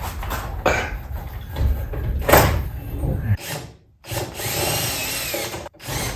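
Knocks and clatter of the opener's hardware being handled, the loudest knock about two and a half seconds in. About four seconds in, a power drill runs for a second and a half with its pitch rising and falling, then stops sharply, with a short burst from it near the end.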